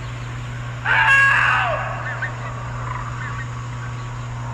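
A single loud scream-like cry about a second in, lasting about a second and sliding down in pitch as it ends. Faint short chirps and a steady low hum sit underneath.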